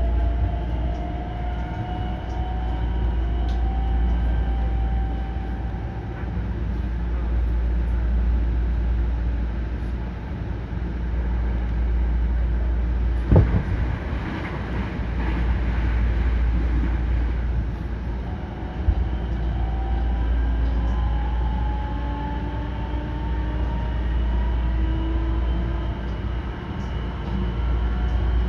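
Hankyu 9300 series electric train running with a steady low rumble, its traction motors whining in thin tones that rise slowly in pitch near the start and again over the last third as it picks up speed. There is a single sharp knock about halfway through.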